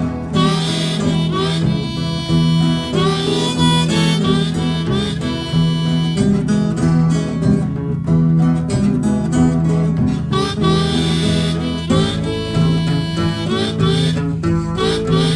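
Country blues harmonica playing an instrumental break with bent, held notes over steady guitar accompaniment.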